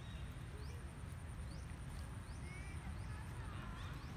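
Faint animal calls: short rising chirps repeating about twice a second over a steady low rumble, with a couple of faint wavering squeaks in the second half.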